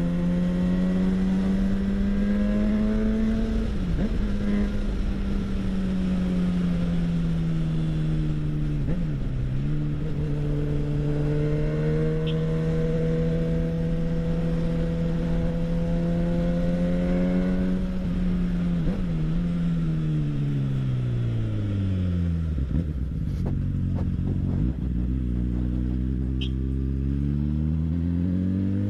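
Honda Hornet inline-four motorcycle engine through a CS Racing aftermarket exhaust, pulling steadily through the gears with short dips at the shifts about 4, 9 and 19 seconds in. It then slows with the pitch falling, with a few short cracks, and picks up again near the end.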